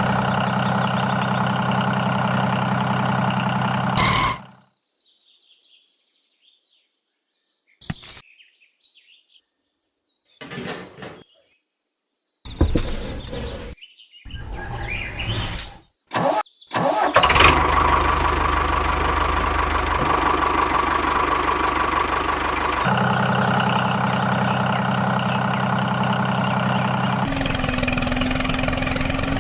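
Small engine of a DIY mini tractor running steadily. It cuts off abruptly after about four seconds, leaving a quiet stretch with a few short scattered sounds. From about seventeen seconds the engine runs steadily again.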